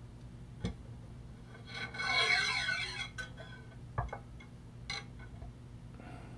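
Aluminium Sony PS-X800 turntable platter being handled and set in place by hand. A knock comes first, then about a second and a half of metal scraping with wavering ringing tones, then two light knocks.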